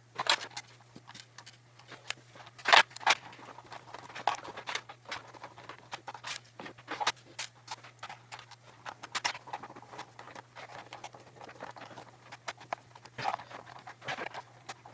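Small screws being driven by hand into the plastic case of a membrane keyboard: irregular clicks, ticks and scrapes of the screwdriver and the plastic being handled.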